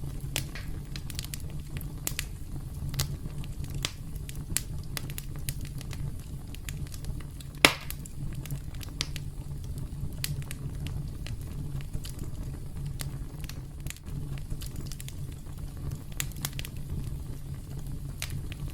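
Campfire crackling: a steady low rumble of burning with irregular scattered pops, one much louder pop about eight seconds in.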